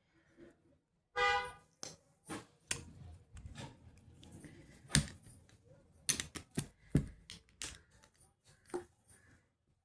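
Makeup cases and packaging being handled, a run of irregular clicks and taps, with a short pitched tone about a second in.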